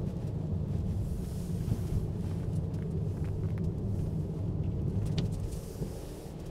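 Steady low road rumble inside the cabin of a Honda Odyssey Hybrid driving on studless winter tyres over a wet road, with a faint hiss and a few light ticks above it.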